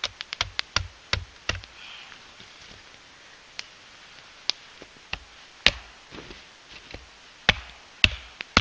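Splitting a log round with an axe, its back struck with a hatchet: sharp knocks of metal on wood, a quick run of about seven in the first second and a half, then single blows about a second apart.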